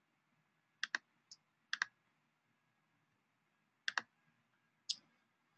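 Computer mouse clicking: a few sharp clicks, most in quick pairs of press and release, spread over a few seconds.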